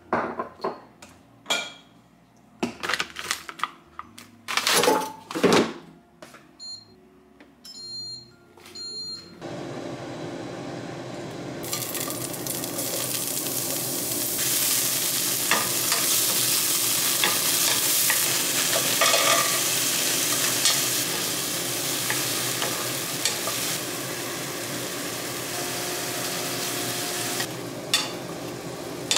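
Knocks and clatter of kitchen handling with a few short beeps, then sliced shiitake mushrooms start sizzling in sesame oil in a frying pan about ten seconds in. The sizzle grows louder and stays steady, with occasional scrapes of a wooden spatula stirring the pan.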